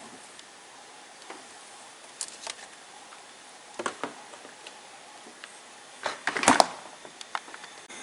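Kitchen handling noises from heating up soup: a few short knocks and clatters of containers or utensils, in small clusters about two, four and six seconds in. The loudest comes about six and a half seconds in.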